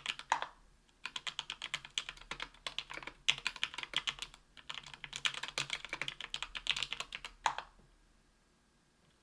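Typing on a Tofu 60% aluminium keyboard with lubed JWK H1 78g linear switches on an aluminium plate, under GMK keycaps. The keystrokes come in quick runs broken by two short pauses, and the typing ends on one heavier, deeper keystroke about 7.5 seconds in.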